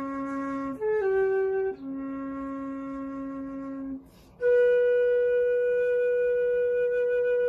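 Solo concert flute playing a slow melody: a held low note, two short higher notes, the low note held again, a brief pause for a breath about four seconds in, then a long sustained higher note.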